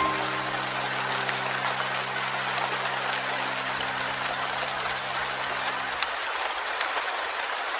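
Steady rain falling, an even patter with scattered individual drops, under a soft held low chord of music that stops about six seconds in.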